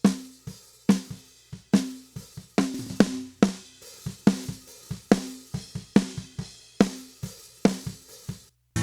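Recorded drum kit playing a steady beat: kick drum and snare with hi-hat and cymbals, the snare landing about every 0.85 s. It cuts off abruptly near the end.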